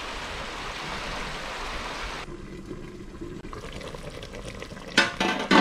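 Steady rush of water for about two seconds, cut off suddenly; a quieter background follows, with two short loud sounds near the end.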